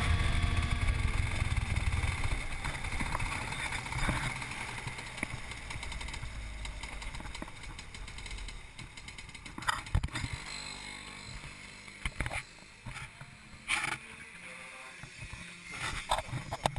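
Rotax kart's two-stroke engine running and dying away over several seconds as the kart slows, followed by a few sharp knocks and clatters of the camera being handled.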